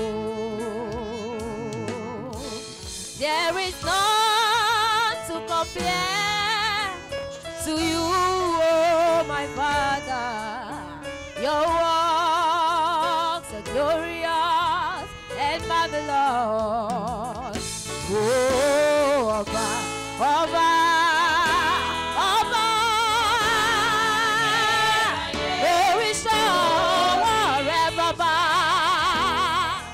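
A woman singing a gospel solo in long held notes with wide vibrato, her pitch sliding and wavering between phrases.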